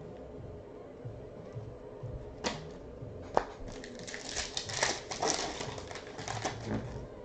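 Trading cards and their packaging handled close up: two sharp snaps, then a few seconds of dense crinkling and rustling about four seconds in.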